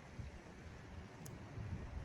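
Seashore wind buffeting the microphone in low, gusty rumbles over a steady wash of breaking waves, with one faint high click about a second in.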